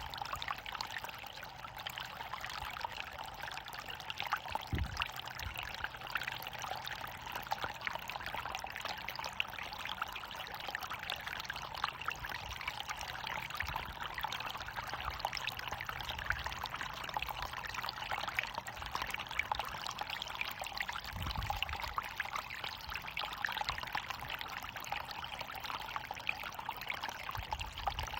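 Water of a small waterfall falling and splashing continuously in a steady, dense rush, with two brief low bumps, about five seconds in and again about twenty-one seconds in.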